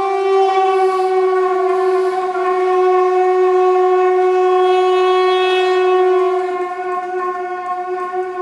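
A single long wind-instrument note held steady on one pitch, from the hechtyphon and microtone duplex duo. It swells about half a second in and eases back about six and a half seconds in.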